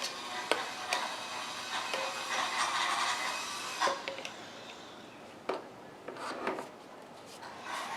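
Clicks and rubbing from a Hoover bagless upright vacuum and its attachment tool being handled, with a few sharp clicks and an uneven scraping noise that swells in the middle and fades later.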